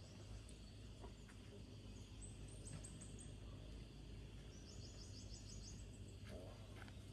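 Faint outdoor background noise, with two short runs of high, rapid chirps from a small bird, about two and five seconds in.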